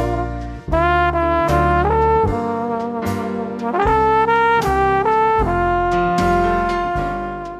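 Outro music: a lead melody of held notes stepping up and down over a heavy bass, fading out near the end.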